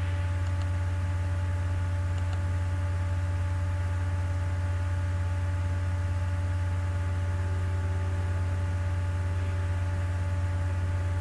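Steady low electrical mains hum with a light hiss, with a couple of faint clicks in the first few seconds.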